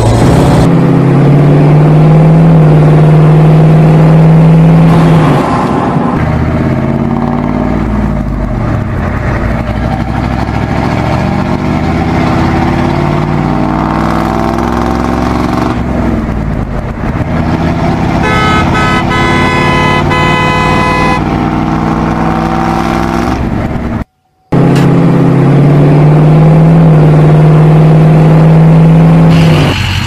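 Dubbed truck sound effects. A long, low, steady horn blast opens, then an engine runs with rising and falling pitch. A higher horn toot comes about 18 seconds in. After a brief dropout, the long low horn blast sounds again.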